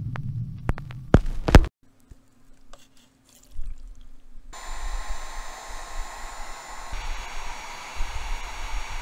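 A few sharp clicks near the start, then an electric heat gun switches on about halfway through and blows steadily: an even hiss of air with a faint high whine. It is warming a nitro RC engine's cylinder head before the first start of its break-in.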